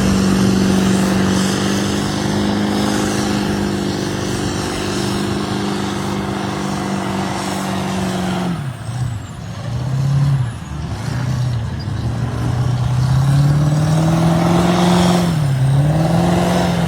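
Off-road 4x4 engine held at high revs for about eight seconds, then dropping off and revving up and down in repeated swells.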